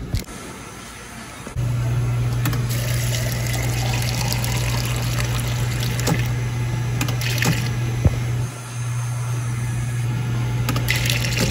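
Fountain drink dispenser pouring a drink into a stainless steel tumbler over ice: a steady rush of liquid with the dispenser's low hum, starting about one and a half seconds in. A sharp click comes about two-thirds of the way through, and the flow stops briefly before it resumes.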